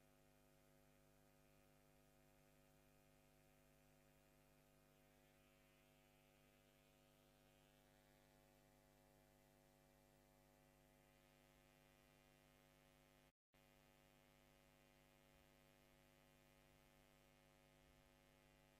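Near silence: a faint, steady electrical hum, which cuts out for an instant about thirteen seconds in.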